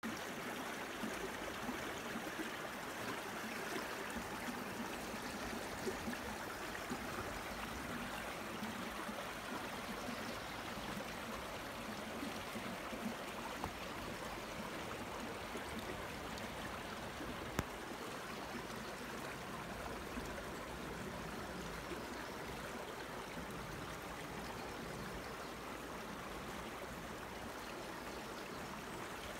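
Small forest brook running and trickling beneath shelves of ice: a steady, even rush of flowing water.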